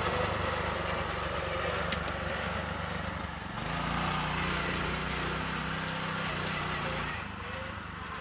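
Predator 212 single-cylinder small engine in a swapped VW Baja Bug, running with a lawnmower-like note. About three and a half seconds in it speeds up as the buggy pulls away, and it grows fainter near the end as the buggy moves off.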